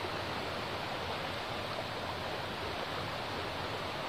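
Steady rushing of a flowing river's current.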